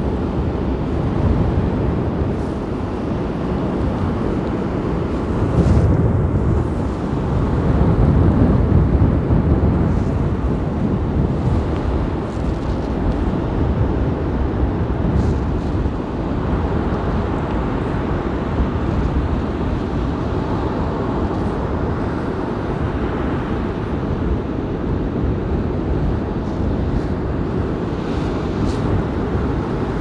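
Storm surf breaking on a shallow sandy beach: a dense, steady wash of waves with strong wind buffeting the microphone. It swells louder about six seconds in and again around eight to ten seconds in.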